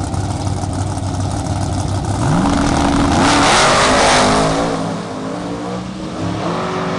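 Mustang drag car's engine idling at the starting line, then revving sharply about two seconds in and launching, loudest as it pulls away. Its pitch then drops and climbs again with gear shifts as it runs off down the strip.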